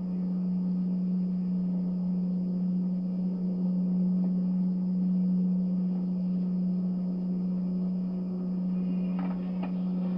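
Steady low electrical hum, one unchanging tone with a faint hiss under it, and a few faint clicks near the end.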